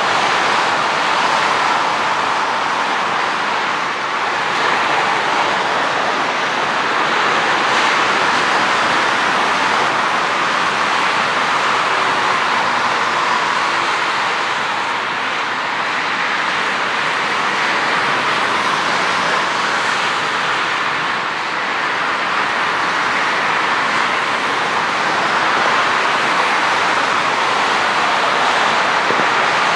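Boeing 737-800's CFM56 jet engines making a steady rushing roar as the airliner lands and rolls out, swelling and easing gently a few times.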